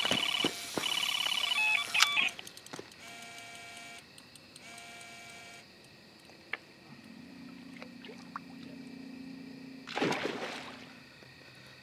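Electronic beeps and held tones, loud at first and then quieter, followed by a low steady hum and a short whoosh about ten seconds in.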